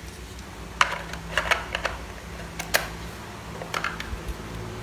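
Handling noises: a few separate sharp clicks and light plastic knocks as a cordless tool's battery pack, controller board and loose brushless motor are picked up and connected.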